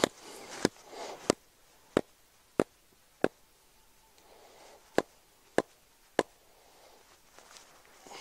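Wooden mallet striking the top of a wooden pole leg, driving it into the ground: nine sharp knocks, about one every two-thirds of a second, with a pause after the sixth.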